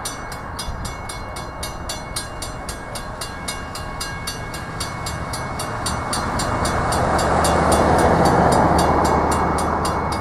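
Grade-crossing warning bells ringing rapidly, about four strokes a second, and cutting off right at the end as the gates finish rising. From about halfway a pickup truck's engine and tyres swell up as it pulls over the crossing, loudest near the end.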